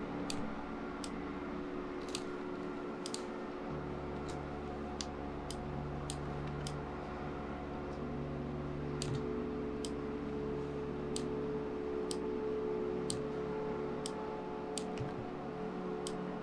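Computer mouse clicking, about twenty sharp clicks at irregular intervals as curve points are picked and dragged, over a steady low hum.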